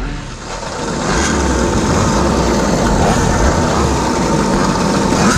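Several small GoPed GoQuad engines idling together, a steady drone.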